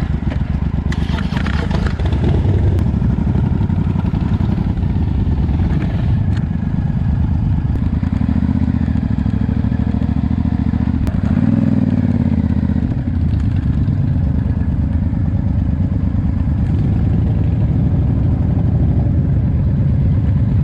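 Motorcycle engine running close by at a steady low idle, with a brief rise and fall in pitch about eleven seconds in.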